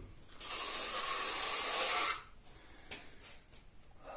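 Filling knife scraping wet joint filler along a plasterboard joint: one smooth swipe lasting under two seconds, followed by a short click about three seconds in.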